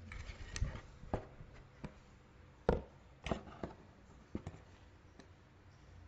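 Hands handling the contents of an unboxed aroma diffuser, a paper user manual, packaging and a small oil bottle, giving irregular taps and clicks with light rustling. There are about eight of them, the loudest a little under three seconds in.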